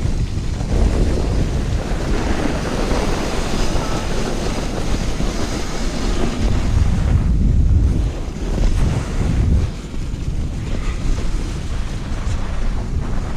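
Wind rushing over the microphone and the rumble and scrape of a toboggan sliding fast over packed snow, easing briefly a couple of times in the second half.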